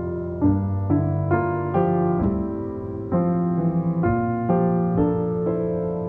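Background piano music: a slow run of sustained notes and chords, a new note struck about every half second.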